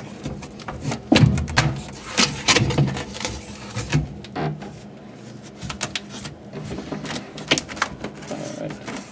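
Crackling, rustling and sharp clicks from a bark background panel and its sticky adhesive strips being handled and pressed into place against the tank glass. The clicks are thickest in the first few seconds and thin out after.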